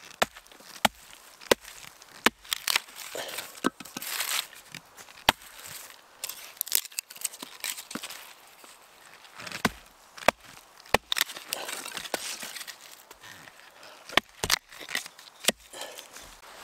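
Dry wood being worked by hand to make fire kindling: irregular sharp cracks and snaps, a dozen or more, with short scraping, crunching stretches between them.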